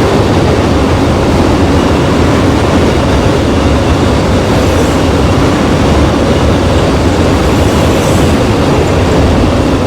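Loud freight train of tank cars rolling past, a steady rumble of wheels on rail that does not let up.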